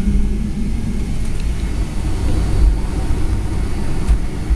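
Boeing 757-300 airliner cabin noise: jet engines running with a steady low rumble and occasional thumps as the aircraft rolls on the runway. A steady hum in the rumble fades about a second in.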